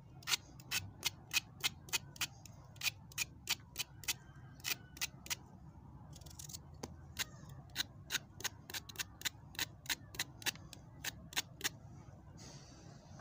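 Kitchen knife blade scraping the skin off a raw carrot in quick repeated strokes, about three short scratchy scrapes a second.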